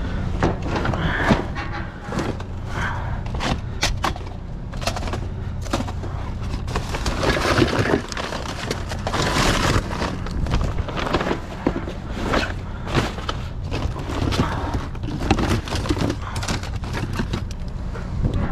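Rummaging through junk inside a dumpster: a steady run of clatters, knocks and scraping as items are shifted and pulled out, over a steady low hum.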